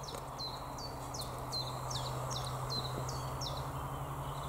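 A songbird singing a quick run of short notes, each sliding down in pitch, about three a second. The run ends about three and a half seconds in.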